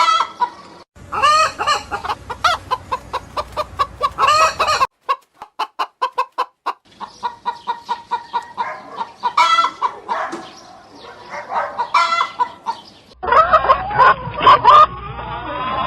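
Domestic hens clucking, short pitched calls repeated over and over, with a quick even run of clucks partway through. The background changes abruptly several times, as between spliced clips.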